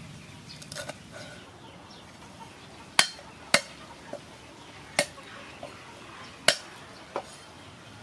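Cleaver chopping on a thick round wooden chopping board: a slow, uneven series of sharp knocks, about one every half second to a second, starting about three seconds in.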